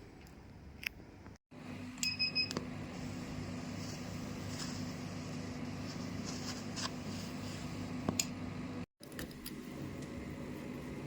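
Fractional CO2 laser machine giving a short electronic beep about two seconds in, followed by a steady low electrical hum from the running unit, with a few light clicks and two brief gaps of silence.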